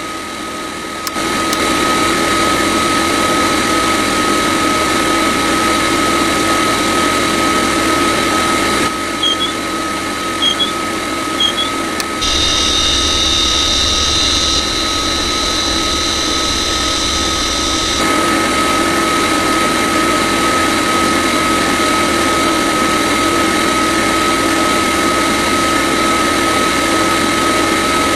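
Small motor of a miniature model machine running steadily with a constant high-pitched whine. The sound shifts in level abruptly a few times, and three short high chirps come about a third of the way in.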